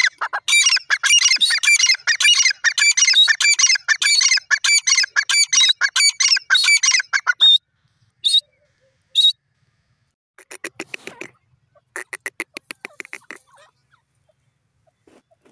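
Grey francolin (teetar) calling: a loud, fast run of shrill repeated notes for about seven seconds, then two single notes. Later come two shorter runs of quieter, rapid even pulses.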